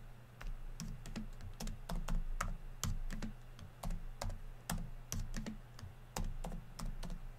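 Typing on a computer keyboard: a run of irregular keystroke clicks, a few a second, with short pauses between words.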